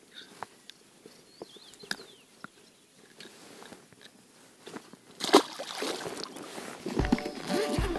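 A zander being released into a calm lake, dropping into the water with a splash about five seconds in. The splash is followed by water noise and a couple of low thumps near the end.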